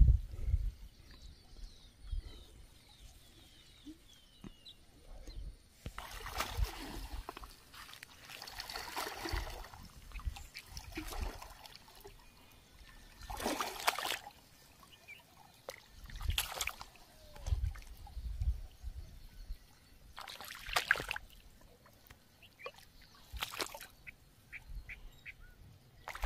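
Shallow lake water sloshing and splashing in short surges every few seconds, as a person wades through it. Faint bird chirps sound in the first few seconds.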